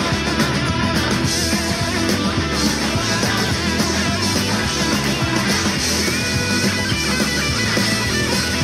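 Rock music.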